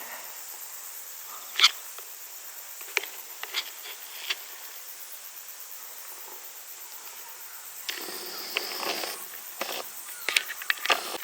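Outdoor ambience of insects chirring steadily, with a few sharp clicks and a burst of rustling about eight seconds in.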